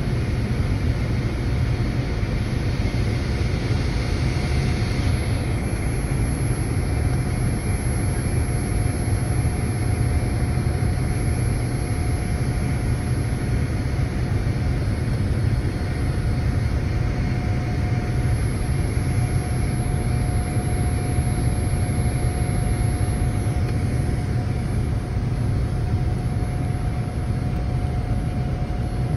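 Steady jet engine noise inside the cabin of a Boeing 787-9, a dense low rumble with a faint steady whine, heard from a window seat.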